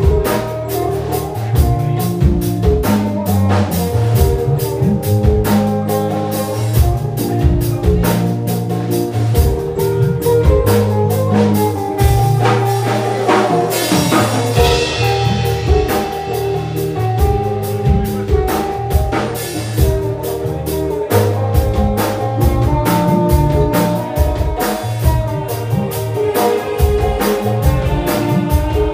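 Background music with drums and a bass line keeping a steady beat.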